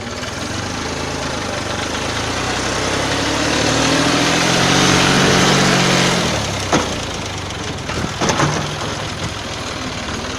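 A motor vehicle engine running, swelling louder and a little higher in pitch around the middle before easing back, with a sharp knock about two-thirds through and a couple more soon after.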